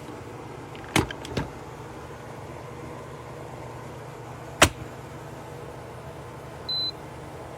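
A TOKIT rice cooker being set: a few sharp clicks at about a second in and a louder single click midway, then one short high beep near the end, over a steady low hum.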